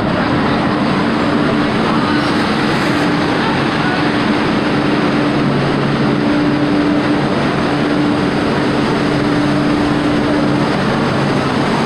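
An MBTA Green Line light-rail car standing at a subway platform, its onboard equipment giving a steady hum that drops out briefly now and then, over a loud, even din of the underground station.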